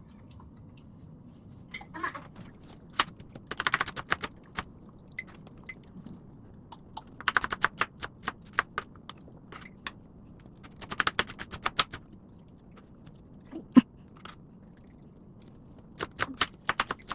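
Kitchen knife chopping quickly on a cutting board, in four short bursts of rapid strokes with single knocks in between.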